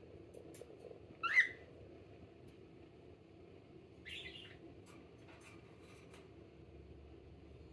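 Pet cockatiel giving two short calls while its pin feathers are being rubbed: a sharp, loud one about a second in and a fainter, rougher one about four seconds in. A few faint clicks come in between.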